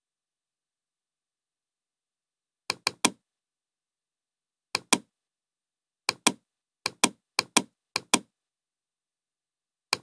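Computer mouse button clicks, each a quick double snap of press and release, in about seven scattered clicks with dead silence between them.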